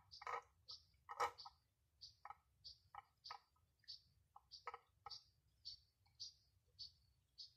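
A cat eating wet food out of a tin, chewing with faint, regular mouth clicks about two to three a second.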